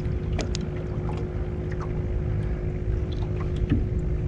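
Small fishing boat on the water: a steady low rumble with a faint constant hum under it, and a few light clicks scattered through.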